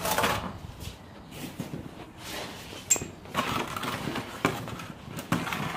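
Handling noises: irregular rustling and scraping with a few sharp knocks, as a person moves down beside the mower and shifts things about.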